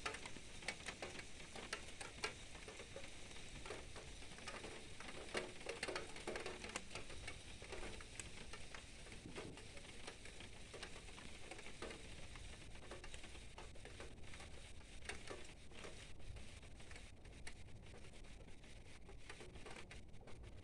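Rain pattering, with many irregular drops ticking close by, over a faint steady hiss.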